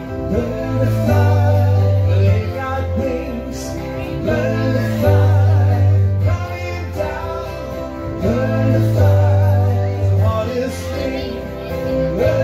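Live band music: acoustic guitar and keyboard with a bass line that moves to a new note every second or two, and a melody line above.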